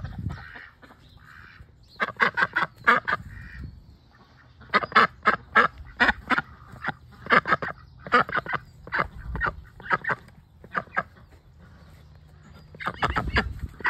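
Domestic ducks quacking loudly in quick runs of short calls, several bursts separated by brief pauses.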